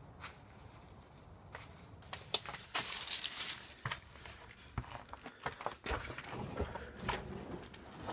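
Footsteps crunching over fallen plaster and debris on a littered floor, with a thicker run of crunching and rustling about three seconds in and scattered sharp clicks and cracks throughout.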